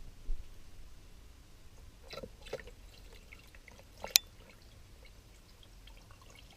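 A few faint water drips and small splashes in a small acrylic aquarium, with one sharp click about four seconds in.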